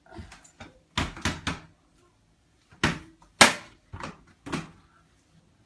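Sharp knocks and bangs from a washing machine being handled, as from its door and parts being pushed and swung: about seven knocks in two clusters, the loudest about three and a half seconds in.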